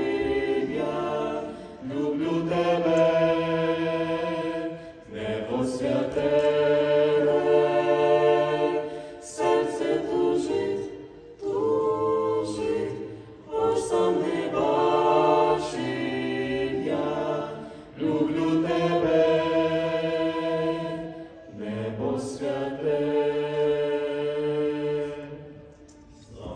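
Vocal quartet of two men and two women singing a Ukrainian song in harmony through microphones. The song comes in phrases with short breaks between them and fades out at its close near the end.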